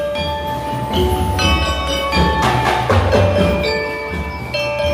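A school drum-and-mallet corps playing: xylophones and other mallet instruments ring out a melody of held notes, with bass drums and snares beating underneath.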